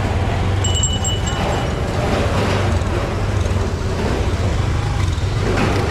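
Busy street-market ambience: motorbike and scooter engines running close by over a continuous low hum, with background chatter of shoppers and vendors. A brief high beep sounds about a second in.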